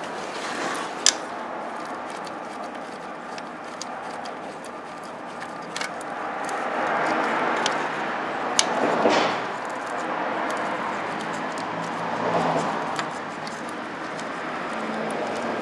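Scattered light metallic clicks and taps of a hand wrench and bolts on the engine's belt tensioner mount as the tensioner is unbolted, with a sharp click about a second in, over a steady background hiss.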